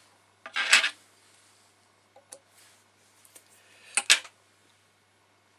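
Two short rustling, scuffing noises, about a second in and about four seconds in, from materials being handled at the fly-tying vise, with a faint click between them.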